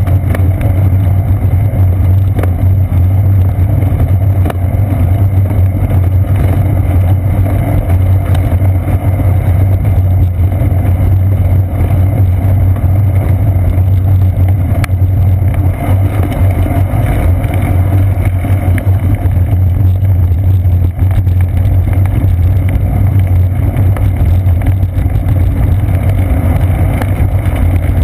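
Steady rumble of wind buffeting and road vibration picked up by a GoPro Hero 2 mounted on a bicycle's seat post as the bike rolls along a paved path. The low rumble is loud and unbroken throughout.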